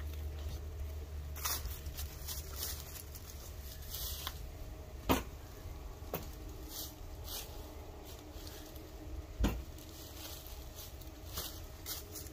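A few sharp knocks and clicks over low background noise, the loudest about five and nine and a half seconds in. The Greenworks GS110 battery chainsaw is not running: it has stalled.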